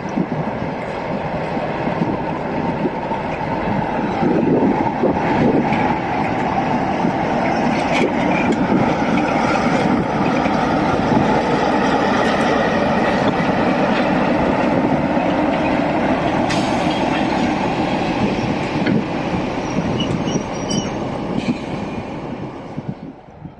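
Class 47 diesel-electric locomotive passing close by, its engine running and its wheels rumbling over the track, growing louder as it draws level. The coaches then roll past with a few sharp clicks from the wheels, and the sound falls away near the end.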